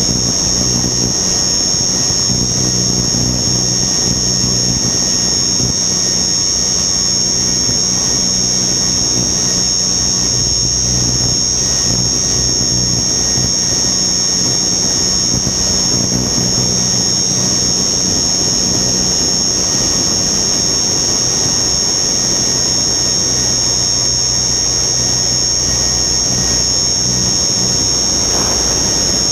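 Radio-controlled helicopter's motor and rotor heard from its own onboard camera in flight: a steady high whine over a low drone, with wind noise on the microphone.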